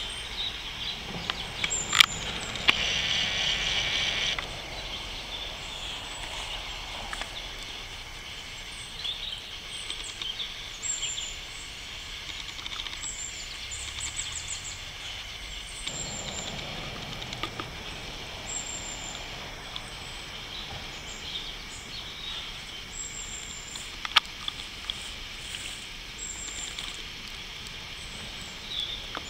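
Outdoor ambience: steady background noise with short high chirps recurring every second or two. A louder stretch of hiss lasts about two seconds a few seconds in, and two sharp clicks stand out.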